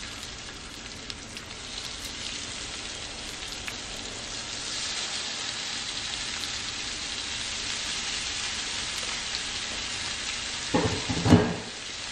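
Fish fillets sizzling as they fry face down in hot ghee in a skillet, a steady hiss that grows a little louder as more pieces go into the pan. A short clatter near the end.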